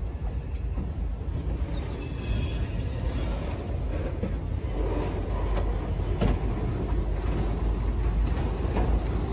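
Freight cars rolling slowly over the rails toward a grade crossing: a steady low rumble of steel wheels that grows louder as the centerbeam lumber flatcar leading the cut draws near. Scattered clicks run through it, with a brief faint high squeal about two seconds in and a sharp clank about six seconds in.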